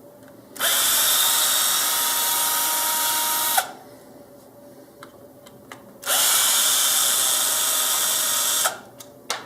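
Electric screwdriver running twice, each run about three seconds, backing out the screws that hold the wing to the wing mount. Light clicks of handling come between the runs and near the end.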